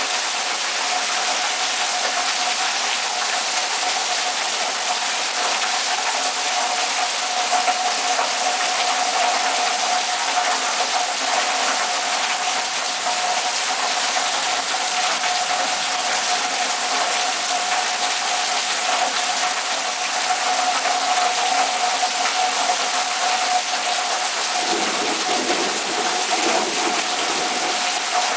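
Heavy thunderstorm rain pouring down in a steady rush, with water gushing off a roof edge. A steady hum runs underneath, and a lower rumble joins in near the end.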